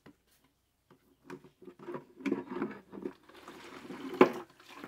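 Water being poured into a small container of aniline dye dissolved in alcohol, diluting it: irregular splashing pulses that thicken into a steadier pour, with one sharp knock about four seconds in.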